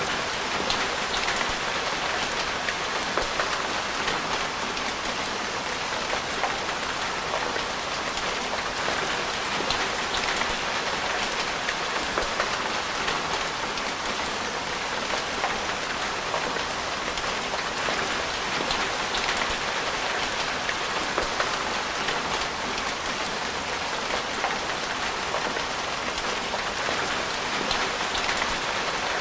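Steady rain falling on hard surfaces: an even hiss dotted with many small, sharp drop ticks.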